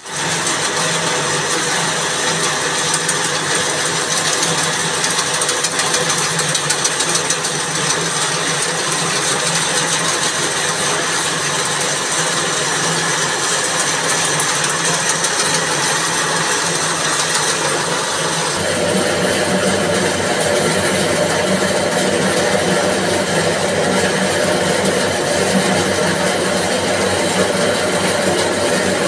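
Coconut-coir spinning machine running steadily, its motor driving a fast-turning yarn spool. About two-thirds of the way in, the sound switches abruptly to another steady machine noise with a stronger low hum.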